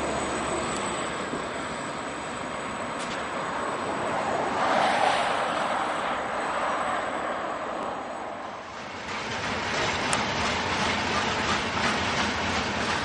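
A lashup of EMD-powered MK50-3 and SD50 diesel freight locomotives, with their 16-645 prime movers, running as they pass. From about nine seconds in, freight car wheels clack rhythmically over rail joints.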